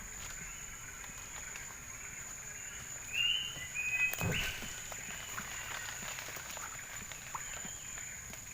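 Steady high-pitched insect drone, with two short animal calls about three and four seconds in.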